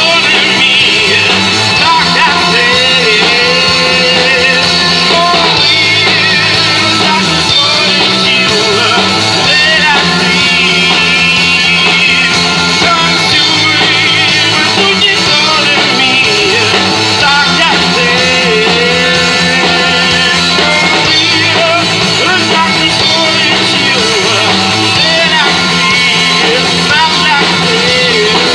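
Live rock band playing loud: a woman singing into a microphone over electric guitar and a Tama drum kit, amplified through the PA.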